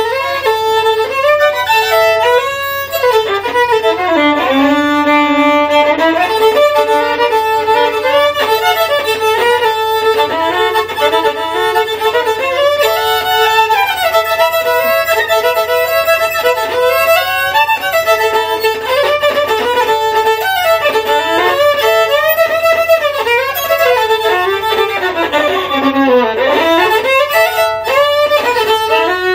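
Solo fiddle playing a Cajun tune, the bow sawing out a running melody with frequent double stops.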